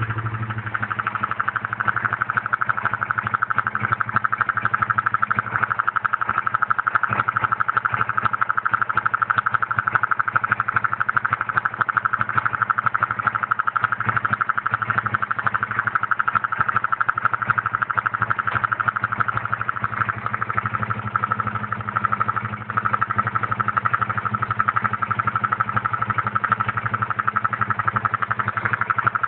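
Honda CB150R Streetfire's single-cylinder engine idling at about 1500 rpm with a fast, steady ticking chatter over the low engine hum. The owner hears this odd noise mostly when the engine is freshly started and cold, and says it fades as revs rise and as the engine warms. It first appeared after the first 1000 km service and oil change.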